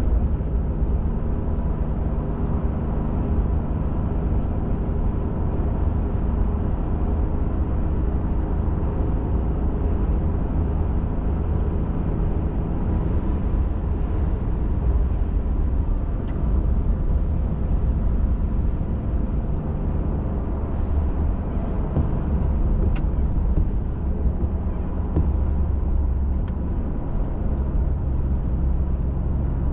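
Pickup truck driving at a steady pace: a continuous low engine and road rumble heard from inside the cab.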